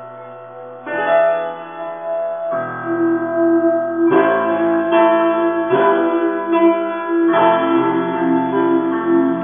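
Background music: keyboard chords held and changing about every one and a half seconds, quieter for the first second.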